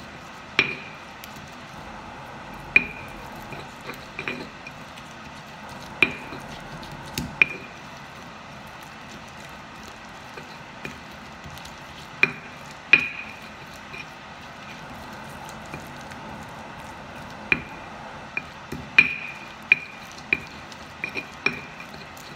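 Stone pestle (ulekan) grinding a wet spice paste of shallots, garlic and keluak in a stone mortar (cobek). The pestle knocks sharply against the stone at irregular intervals, each knock with a short bright ring, and the knocks come more often near the end.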